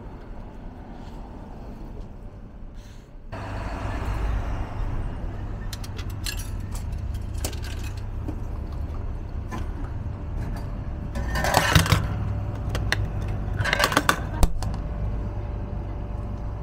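Coins clinking into a retro Coca-Cola glass-bottle vending machine, then two bursts of metal-and-glass clatter from its vend mechanism as a bottle is released, over a steady low rumble.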